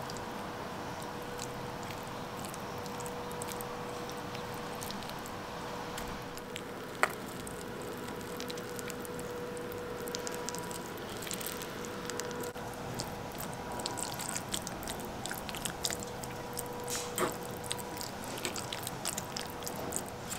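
Soft squishing and small clicks of a fork scraping and mashing roasted pumpkin flesh in a bowl, busier in the second half, with one sharp click about seven seconds in. A steady faint hum runs underneath.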